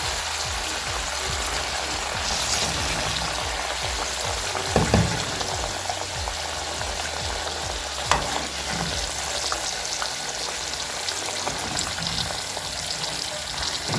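Sausages frying in oil in a pan, a steady sizzle, with a knock about five seconds in and a sharper one about eight seconds in.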